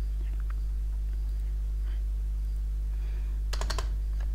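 Computer keyboard keystrokes during data entry: a few faint taps about half a second in, then a quick run of sharp key clicks near the end, over a steady low electrical hum.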